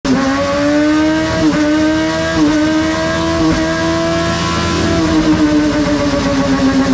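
Kawasaki ZX-6R's inline-four engine accelerating through the gears. Its pitch climbs, dips briefly at each of three upshifts about a second apart, then levels off and slowly falls.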